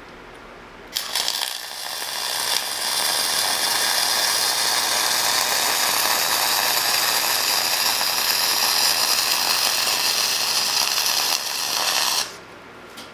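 Millermatic 251 MIG welder running one continuous bead with .045 flux-core wire: the steady, sizzling crackle of the arc. It strikes sharply about a second in and cuts off abruptly about a second before the end.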